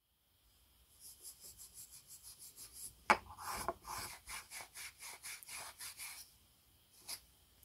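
Steel wool scrubbed back and forth over an old wooden handle, a quick scratchy rubbing at about five strokes a second that stops about six seconds in. There is a sharp click about three seconds in and another near the end.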